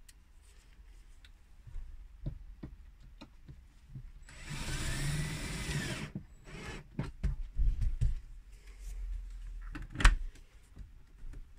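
Power drill-driver runs for about two seconds with a whine that rises and falls in pitch, driving a mounting screw that secures the fridge in its cabinet. A few knocks follow, then a single sharp thud near the end as the fridge door is shut.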